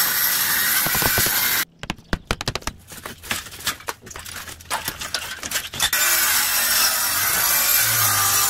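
Diamond-blade saw grinding through stucco. About 1.7 s in it gives way to a few seconds of scattered knocks and clatter as a window insert frame is pulled loose, and the saw cuts again from about six seconds in.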